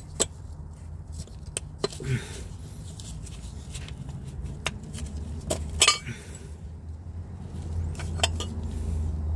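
Sharp metallic clicks and clinks as a clutch release bearing and release fork are handled and fitted in a gearbox bell housing, with the loudest clack just before six seconds. A steady low hum runs underneath.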